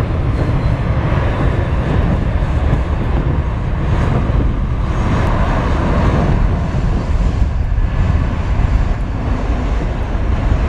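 Jet airliners taxiing close by: a steady, loud rumble of idling jet engines that holds through without any sharp events.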